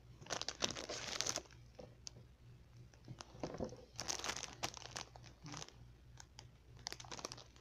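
Clear plastic packaging crinkling and crackling as hands handle it, in several bursts: the strongest comes about a second in, another about four seconds in, and a shorter one near the end.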